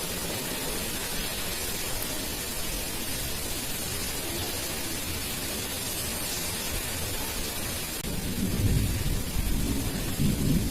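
Heavy rain falling steadily, with thunder rumbling in low and loud from about eight seconds in.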